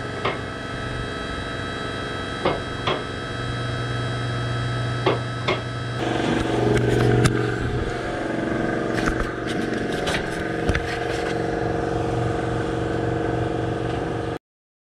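An engine running steadily, its tone changing about six seconds in, with a few pairs of sharp knocks; the sound cuts off suddenly just before the end.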